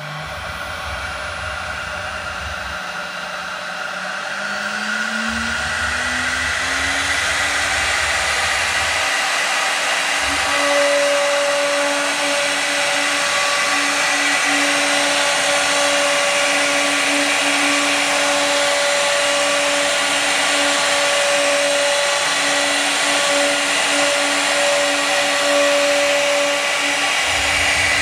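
3 kW high-speed electric spindle on a CNC router spinning up, its whine rising in pitch over the first five seconds, then running steady while a pointed engraving bit cuts a groove into MDF board.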